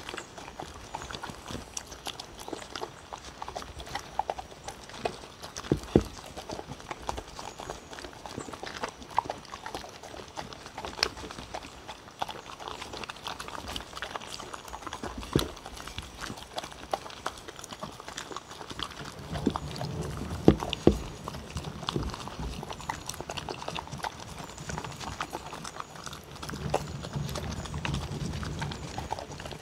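Two dogs eating chopped chicken breast and vegetables from wooden bowls: continuous wet chewing and licking with many small clicks, and now and then a sharper knock of muzzle or teeth against a bowl.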